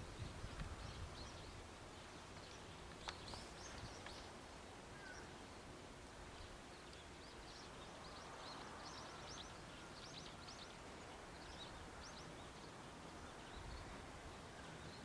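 Faint outdoor ambience with small birds chirping, short high calls repeated throughout and busiest about two-thirds of the way through.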